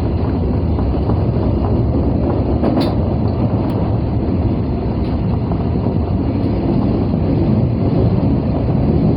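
Osaka Metro 22 series subway train running at speed: a steady low rumble of wheels on rail, with a single sharp click about three seconds in.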